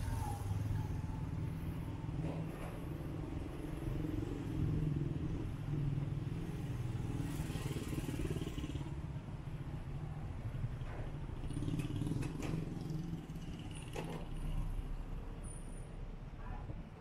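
Street traffic: car and motorcycle engines running at a junction, a steady low hum with a few short clicks.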